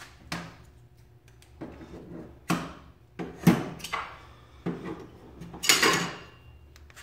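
Metal tool box drawers being worked open and shut, a series of clunks and metallic rattles, the loudest about halfway through and a longer sliding rattle near the end. The drawers' ball-bearing slides are broken.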